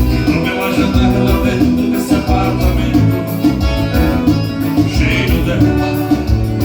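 Live dance band playing Latin-style dance music with a steady beat, with some singing.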